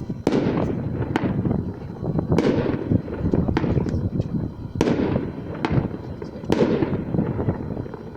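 Aerial fireworks shells bursting: a run of about seven sharp bangs, roughly one a second, each trailing off quickly.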